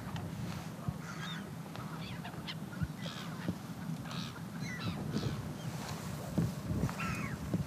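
Birds calling: a string of short calls over a steady low rumble.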